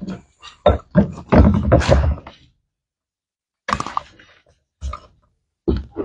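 Microphone being handled: a run of dull thumps and knocks with rustle in between, then a short pause and a few single thumps.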